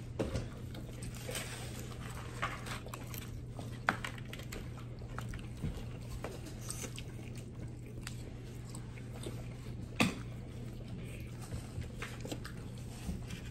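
People chewing and biting fried food: scattered short mouth clicks and smacks, with sharper clicks about four seconds and ten seconds in, over a steady low hum.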